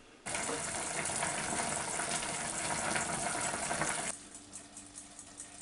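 Pot of chopped red peppers and onions in water and vinegar boiling on the stove, a steady bubbling hiss that starts abruptly and cuts off about four seconds in. A faint steady hum remains after it.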